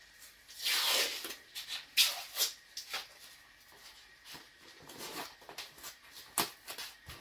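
Adhesive tape pulled off its roll with a ripping sound about a second in, then short tearing and rubbing sounds as strips are torn and pressed onto a cabinet edge.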